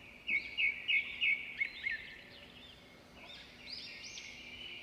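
Small birds chirping: a quick run of about five sharp, high chirps in the first two seconds, then softer, scattered arching calls.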